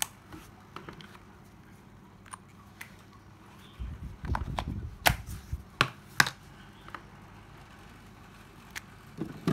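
Scattered sharp clicks and knocks of cordless drills and screwdrivers being handled and set down, with a short low rumble of something shifted about midway.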